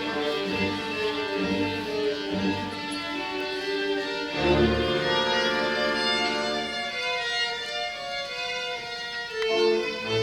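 Classical music played by strings, a violin prominent, with a deep low chord entering about four and a half seconds in.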